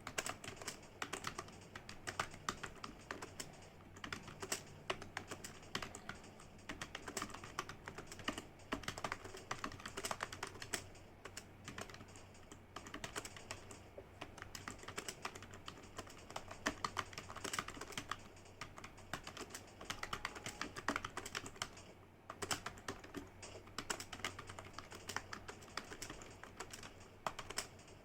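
Computer keyboard typed on quickly and steadily, keystrokes clicking in a continuous run with a few brief pauses: timed typing-test practice.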